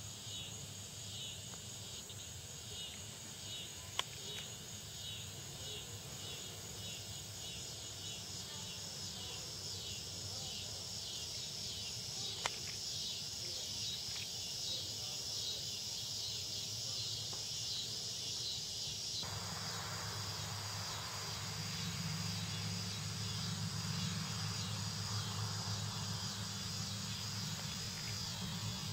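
Insects chirping in a steady pulsing rhythm, which gives way about two-thirds of the way through to a steadier high buzz over a rising low hum. A sharp click sounds about four seconds in and another about twelve seconds in.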